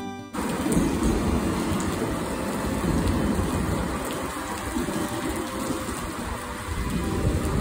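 Steady rain falling on wet pavement, with a light-rail tram running past along the street. An even hiss cuts in about a third of a second in.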